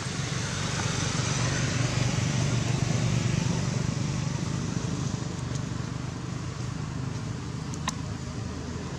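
Motor vehicle engine passing, growing louder over the first few seconds and then fading, with a sharp click near the end.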